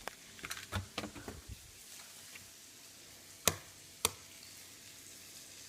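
Eggs being handled at a kitchen counter: a cluster of light clicks and clatter, then two sharp knocks about half a second apart.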